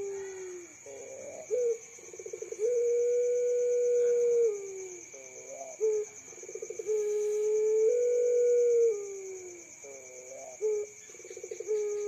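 Puter pelung dove (a long-cooing variety of Barbary dove) cooing. Each phrase is a quick stuttering run of notes followed by one long drawn-out low coo that dips at its end, and the phrase comes three times.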